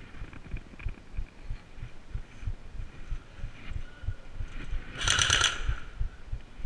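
Airsoft rifle firing one short rapid burst of about half a second, about five seconds in. Behind it, a steady run of low thumps, about three or four a second.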